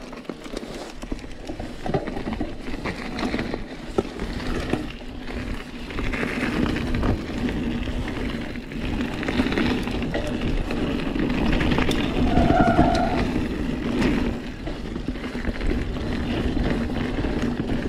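Santa Cruz Hightower 29er mountain bike riding fast down a wet gravel trail: tyres rolling and crunching over gravel, with the chain and bike rattling and clicking over bumps.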